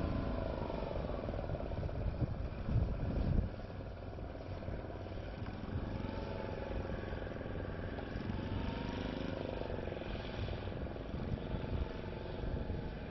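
Low drone of boat engines from vessels under way, with faint tones that slowly drift in pitch. Wind rumbles on the microphone throughout and is strongest about two to three seconds in.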